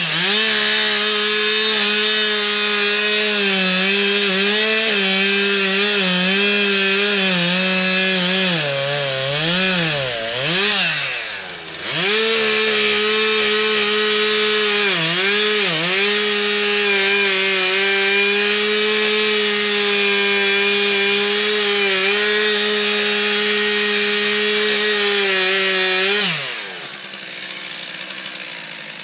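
Stihl two-stroke chainsaw running at high revs while cutting into a log. Around the middle its pitch swings down and up as the throttle is eased and reapplied, and it dips again briefly a few seconds later. About three seconds before the end it drops back to idle and gets quieter.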